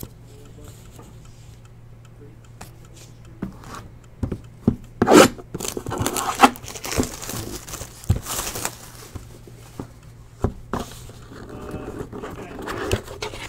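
Trading cards and a cardboard card box handled on a table mat. It is quiet for the first few seconds, then the box scrapes and slides, with a few sharp knocks, over a faint steady hum.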